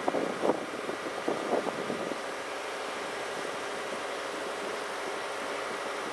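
Diesel generator engines of the E001-series Shiki-shima train running steadily while the train stands in diesel mode. A few short, sharp knocks in the first two seconds stand out over the drone.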